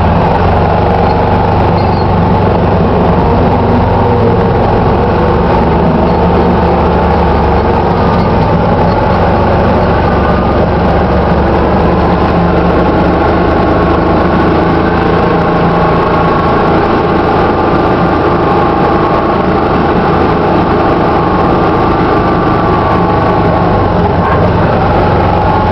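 Yamaha Rhino utility vehicle's engine running steadily under load while plowing snow, heard from inside the cab.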